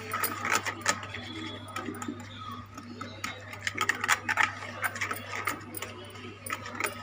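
Light, irregular clicks and clinks of kitchen handling, likely utensils against a bowl, over the steady low hum of an LG microwave oven running its preheat.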